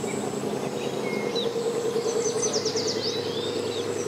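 An engine running steadily at low revs, with birds chirping over it, a quick run of chirps about halfway through.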